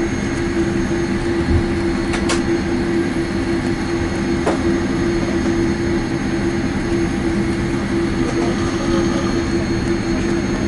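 Boeing 787-8's GEnx engines and rolling gear heard inside the cabin during taxi: a steady hum with a strong low tone over a rumble from the wheels. Two brief knocks come about two and four and a half seconds in.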